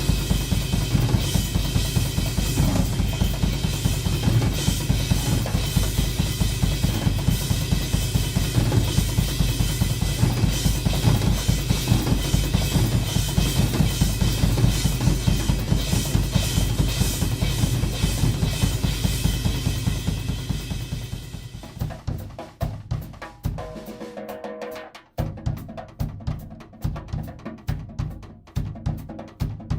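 Drum kit solo: fast, dense playing on bass drum, snare and cymbals. About two-thirds in the cymbal wash drops away and the playing turns to sparser drum hits, with a brief break shortly after before the hits resume.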